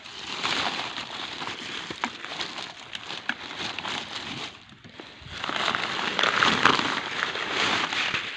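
A thin plastic carrier bag rustling and crinkling as it is opened and pulled back by hand. It dips briefly just before halfway, then crinkles louder again.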